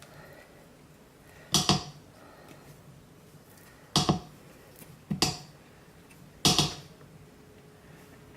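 Four short, sharp knocks spread over several seconds, the first and third doubled, each with a brief ring, like hard objects being knocked or set down.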